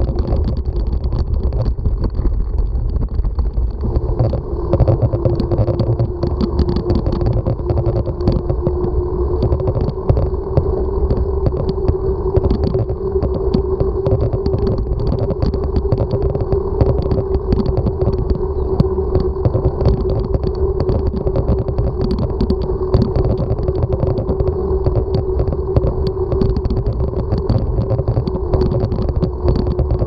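Riding noise picked up by a camera mounted on a moving bicycle: a steady low rumble of wind and road vibration, with many small rattling clicks. A steady hum sets in about four seconds in and holds.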